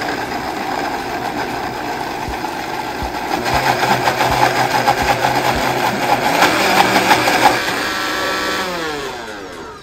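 Countertop blender motor running at speed, pureeing melted butter with shallot, garlic and herbs into a compound butter. About eight seconds in it is switched off and winds down, its pitch falling.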